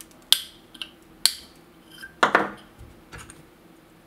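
Side cutters snipping off short ends of 0.6 mm tinned copper wire: two sharp clicks with a ringing tail, about a second apart. A short clatter follows about two seconds in, and a fainter one a second later.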